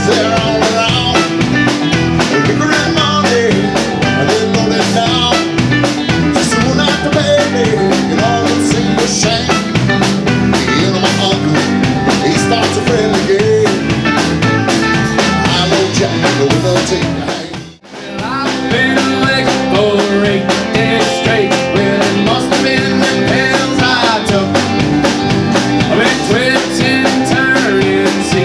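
Live rock band playing, with electric guitars, a drum kit and keyboard. About two-thirds of the way through, the sound drops out for a moment and comes straight back.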